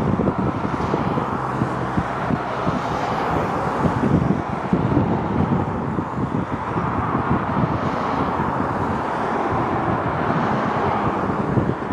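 Wind buffeting the microphone over the steady distant noise of a Boeing C-17 Globemaster's four turbofan jet engines as the aircraft moves along the runway.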